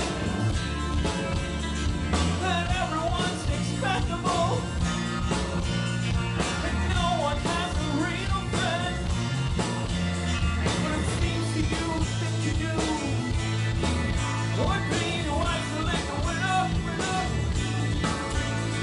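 Live rock band playing: electric guitars, bass guitar, drums and keyboards, with a lead melody bending up and down in pitch over a steady bass.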